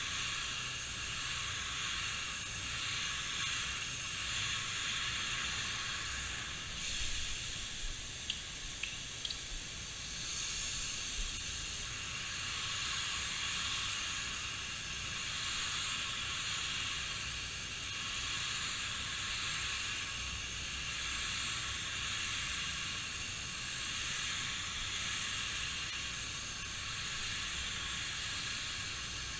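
Gravity-feed spray gun hissing steadily as it sprays primer onto a car body, the hiss swelling and fading gently about every two seconds. A few light clicks about eight seconds in.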